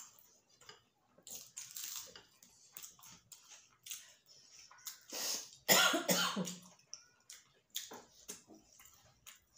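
Two people eating rice and chicken curry with their fingers from steel plates: fingers mixing rice against the plate, chewing and lip smacks in short clicks, with one loud cough about six seconds in.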